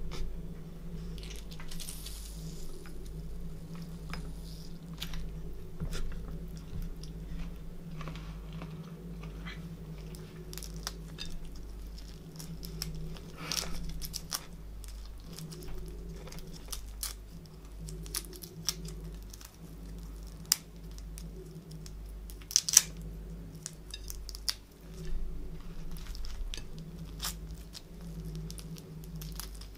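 Boiled prawns being peeled by hand, the shells crackling and snapping off in irregular sharp clicks, with chewing of the prawn meat in between. A steady low hum sits underneath.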